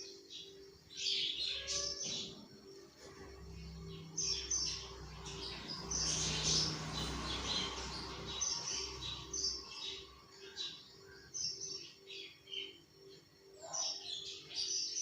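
Small birds chirping over and over in short bursts. Underneath, a low rumble and hiss swells from about four seconds in and fades near ten seconds.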